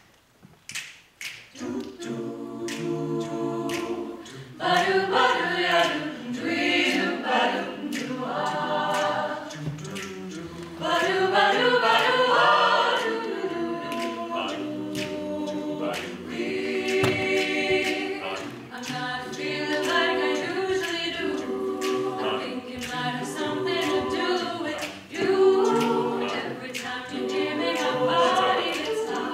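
Mixed-voice a cappella group of men and women singing close-harmony chords, with no instruments. The chords start about a second and a half in, after a few faint clicks, and grow fuller and louder at about four and a half seconds.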